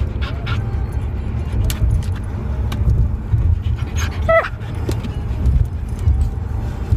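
Steady low rumble of a moving car's cabin. About four seconds in, a husky gives one short whine that falls in pitch, and there are a few light clicks.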